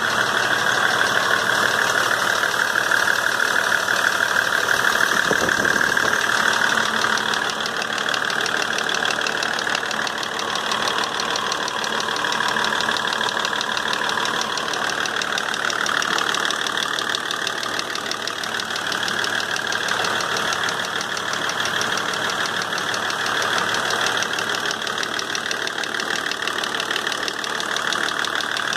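M51 engine running with a rapid, steady knock, a little quieter after about seven seconds.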